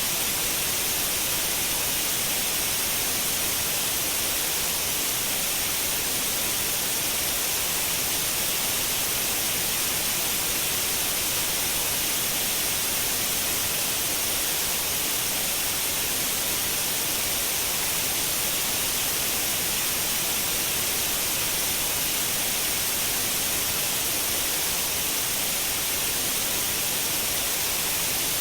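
Continuous white noise: a steady, even hiss, brightest in the high end, with no change or other sound.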